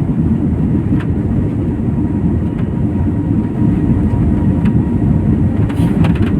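Airliner cabin noise during takeoff: a loud, steady rumble of the jet engines and the airframe, with faint steady tones above it and a few faint clicks.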